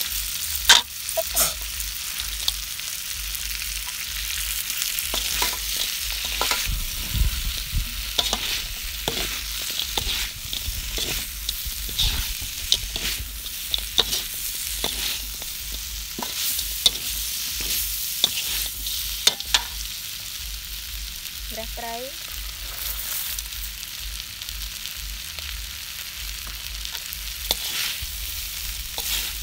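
Frog pieces, chilies and curry paste stir-frying in a large metal wok: a steady sizzle, with frequent sharp scrapes and clinks of a metal spatula against the pan.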